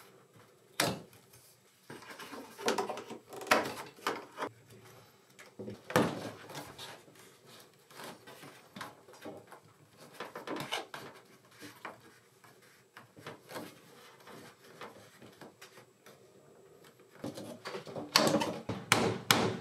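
Hands handling PEX water pipe and fittings overhead: scattered knocks and clicks, then a quick run of sharp clicks near the end as a hand tool is worked on a pipe joint.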